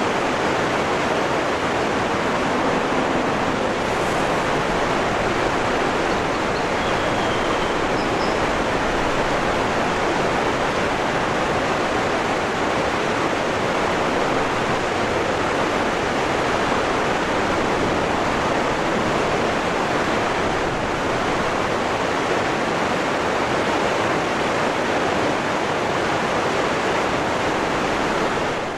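A waterfall rushing: a steady, dense hiss of falling water. A few faint, brief high chirps come through about seven to eight seconds in.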